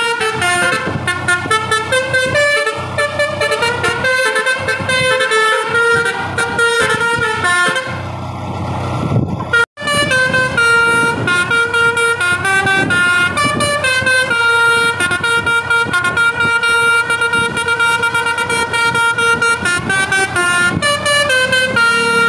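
Telolet Basuri V3 bus horn with roof-mounted trumpets playing a fast melody of stepped notes. About eight seconds in the tune stops briefly and only engine rumble is heard, then the audio cuts out for an instant and the melody starts again.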